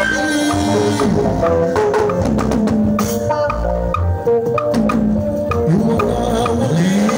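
Live band music, with drums and percussion keeping a steady beat under a pitched melody line.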